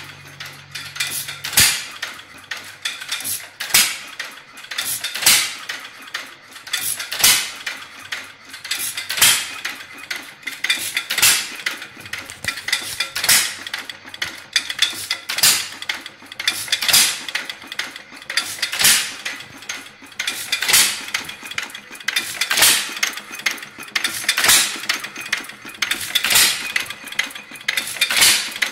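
Alpha De Laval stationary engine running, a sharp bang about every two seconds with lighter mechanical clicking from the valve gear in between. It is running on a new head gasket and a new intake valve spring that the owner thinks may be a little too heavy.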